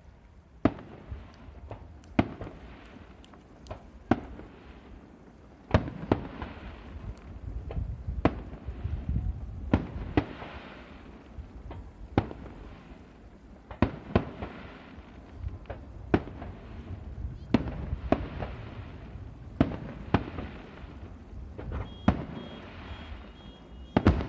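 Aerial firework shells bursting in steady succession, a sharp bang every second or two, each followed by a low rolling rumble.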